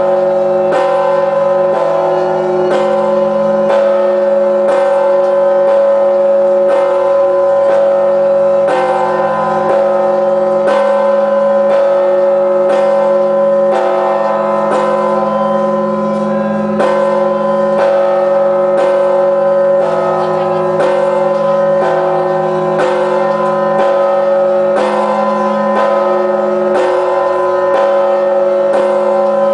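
Large 7,150 kg church bell tolling steadily at about one stroke a second, its deep hum and overtones ringing on without a break between strokes.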